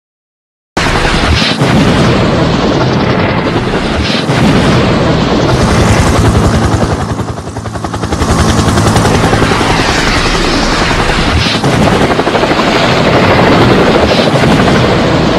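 Helicopter rotor running with a rapid, steady blade chop. It starts abruptly after a moment of silence, dips briefly around the middle and then swells again.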